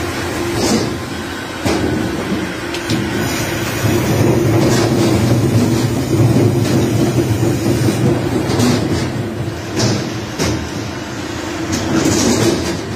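Steady machinery drone on a purse seine fishing vessel: a low hum with a higher steady tone over it, broken by several irregular knocks and clatters.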